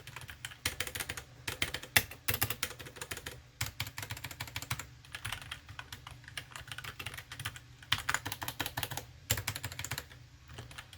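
Typing on a 60% mechanical keyboard with Otemu brown switches (Cherry MX Brown clones): a fast, irregular run of key clicks and clacks, with short pauses near the middle and near the end.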